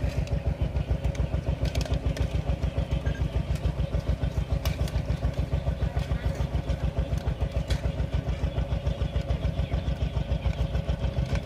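Small engine running steadily at an even, fast chugging beat, with a few faint clicks over it.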